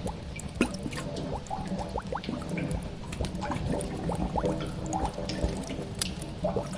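Cave ambience: water drips falling irregularly, several a second, over a low steady drone.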